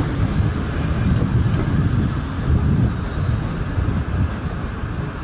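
Wind buffeting the microphone over the steady background noise of a large railway station, an uneven low rush with no distinct events.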